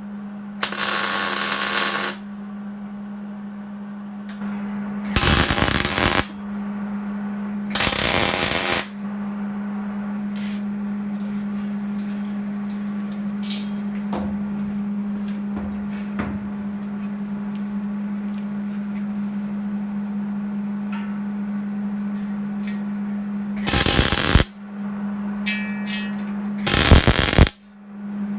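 Electric arc welding in short bursts: five crackling runs of the arc, each about a second long, over a steady low hum.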